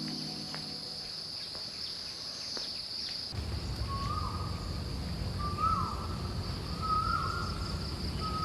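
A steady high-pitched insect trill of crickets or cicadas with a few light ticks. About three seconds in it cuts to a low background rumble, over which a bird gives a short call four times, about a second and a half apart.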